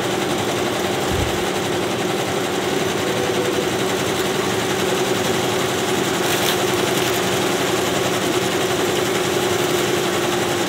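Multi-needle embroidery machines running together, a steady, even mechanical stitching noise with a constant hum, and a brief knock about a second in.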